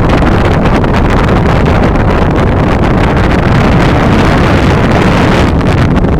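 Strong wind buffeting the camera microphone: a loud, steady rumble with a crackly edge that eases slightly near the end.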